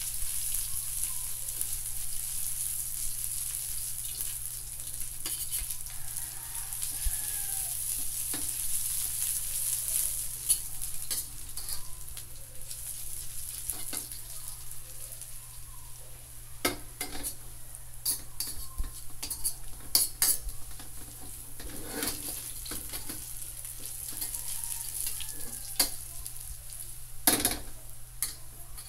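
Chopped ginger sizzling in oil in a carbon steel wok, with a metal spatula scraping and clinking against the pan as it is stirred. The spatula strikes come more often in the second half.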